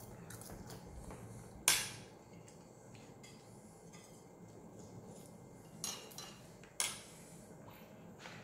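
Spoons and forks clinking against plates during a meal. There are a few small clicks, and three sharper clinks: the loudest about two seconds in, two more about six and seven seconds in.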